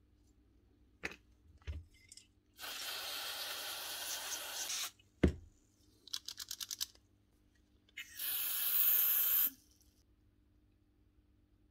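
Aerosol contact cleaner sprayed in two hissing bursts of about two seconds each, the second louder, to flush out a dirty impact-driver trigger switch. A few knocks come before the first burst, and a quick run of about eight clicks falls between the two bursts.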